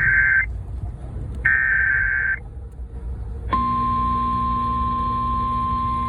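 Emergency Alert System alert tones for a tornado warning: the end of the SAME digital header, heard as two short shrill data-tone bursts about a second apart, then about three and a half seconds in a steady single-pitched attention tone that holds on.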